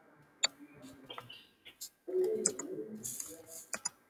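Computer keyboard keystrokes: irregular single clicks of typing. A short low murmur of a voice comes in about halfway through.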